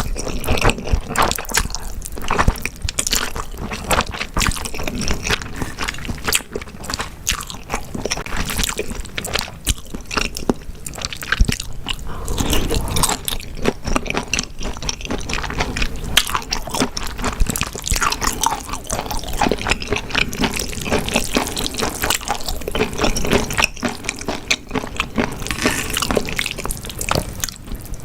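Close-miked eating sounds: wet chewing, smacking and squishing, with many quick crisp clicks packed together, as grilled beef intestines and spicy fire noodles are eaten.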